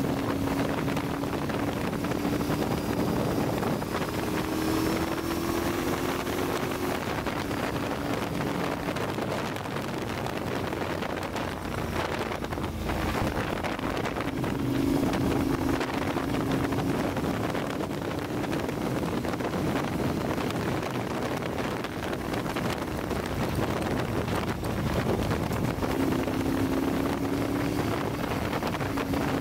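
Sport motorcycle engine running at a steady cruise under heavy wind noise on the microphone. The engine's hum comes and goes through the wind and rises slightly in pitch a few times, about five seconds in and again later.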